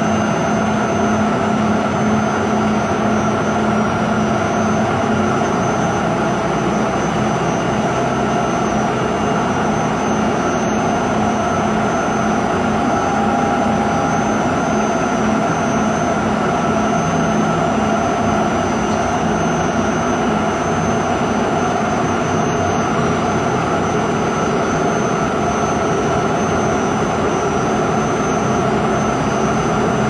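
Xingyi 800-4E remote-controlled polishing machine running steadily: a constant loud motor drone with a few held tones over dense grinding noise, unchanged throughout.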